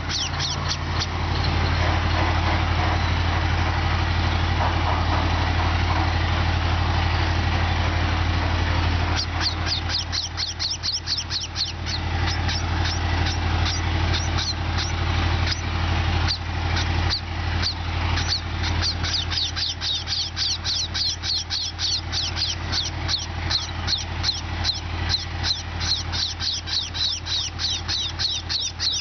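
A flock of sparrows chirping, many short, high chirps in quick succession, starting about a third of the way in and continuing to the end, over a steady low drone.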